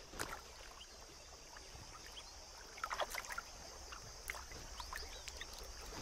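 Faint sloshing and squelching of an elephant's feet stepping in the shallow water and mud at the edge of a waterhole, with a few soft splashes from about three seconds in, over a steady faint high hiss.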